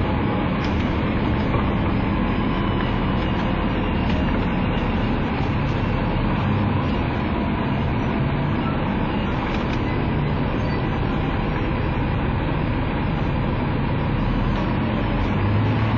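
Tri-axle double-decker bus's diesel engine idling steadily, with an even low hum that holds throughout.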